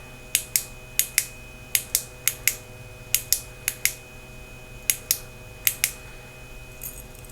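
Clicky tail switch of a small keychain flashlight being pressed repeatedly, giving about eight pairs of sharp clicks, each pair a quick press and release, as the light is cycled through its modes.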